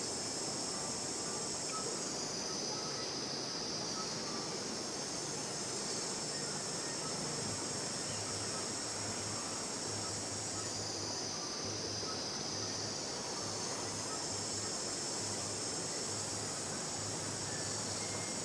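Steady high-pitched insect chorus that eases off twice for a couple of seconds, over a constant hiss.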